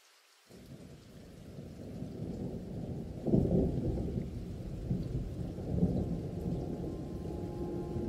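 Wind buffeting the microphone: a low rumble that starts abruptly about half a second in, builds, and surges in loud gusts around the middle.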